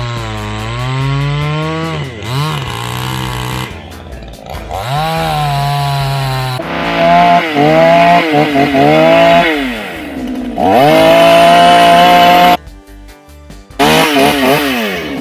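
Two-stroke chainsaw engine revving up and down, its speed rising and dropping again and again, in several short stretches joined by abrupt cuts. This is a new saw that is still being run in and tuned on its carburetor screws.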